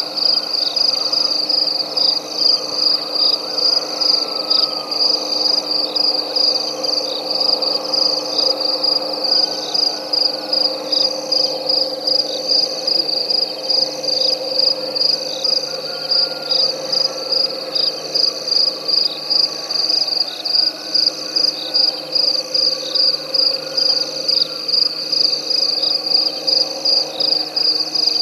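Night chorus of frogs and insects: a loud, high-pitched insect trill pulsing evenly a little more than once a second over a dense, steady chorus of frogs.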